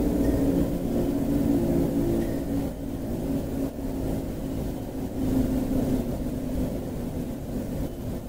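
Outdoor warning siren on a town water tower sounding during a test: a low, steady tone with its overtones, swelling and easing in loudness.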